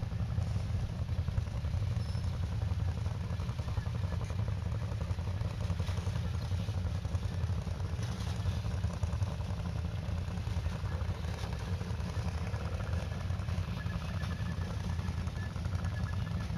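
ATV engine running with a steady low rumble.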